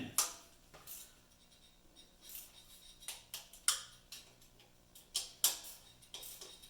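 Scattered sharp metallic clicks from a hand wrench and socket tightening an oil pan bolt to torque, about eight clicks at uneven spacing.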